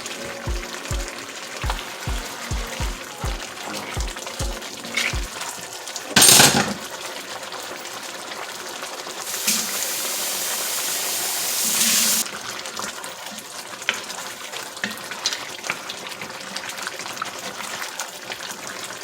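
Lamb meat frying in a pot in its own juices, sizzling, with a utensil clicking and scraping as it is stirred. A longer, louder hiss of sizzling comes about halfway through, and a short loud rush of noise about six seconds in. Background music with a steady beat plays during the first five seconds.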